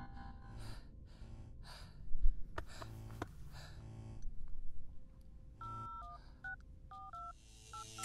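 Touch-tone phone keypad being dialled: a quick run of about six short two-tone beeps in the second half, after a few handling clicks and knocks.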